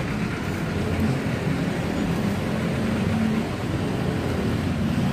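Motor vehicle engine running close by with a steady low hum and rumble, as in street traffic.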